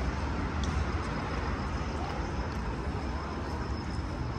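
Steady city street ambience: an even wash of traffic noise over a low rumble.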